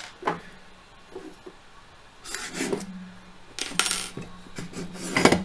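Metal rifle parts and tools clinking and scraping as they are handled and set down on a workbench, in a few short separate bursts.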